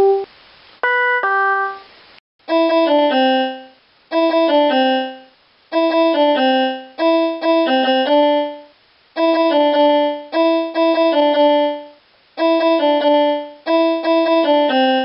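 Electronic keyboard music with a piano-like sound: a series of short phrases of notes and chords that fade away, each about a second and a half long, with brief pauses between them.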